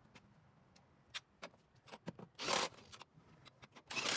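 Scattered light clicks and two short scraping rustles, each about half a second long: one about two and a half seconds in and one near the end.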